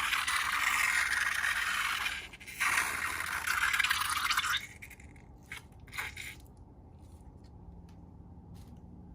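Scratchy scraping noise in two stretches of about two seconds each, with a short break between them, then faint scattered clicks.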